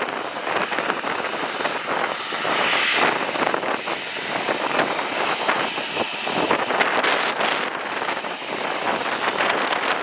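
Boeing 737-800's CFM56-7B jet engines running at low taxi power as the airliner rolls slowly past close by, a steady rush of jet noise with a faint high whine.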